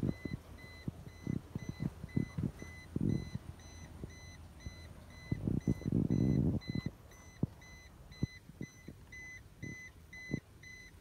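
A Toyota car's cabin warning chime beeping steadily, about two beeps a second, as it does while a door stands open. Soft rustles and knocks of handling come and go, with a longer rustle about six seconds in.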